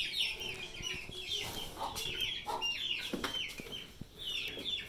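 Caged chickens clucking and calling: a busy run of short, high calls, each falling in pitch.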